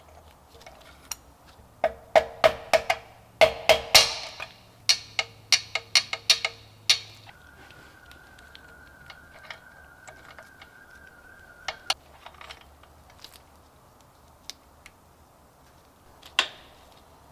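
Sharp metal knocks and taps, a quick irregular run with a ringing note, from work to free the jammed kickstarter of a 125cc two-stroke scooter engine. The knocks are loudest over a few seconds near the start, then give way to sparse lighter clicks, with a faint steady high tone for about four seconds in the middle.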